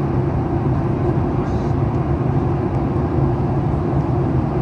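Steady cabin noise inside a Boeing 737 MAX 8 in flight: airflow rush and the hum of its CFM LEAP-1B turbofan engines, with a low, even drone.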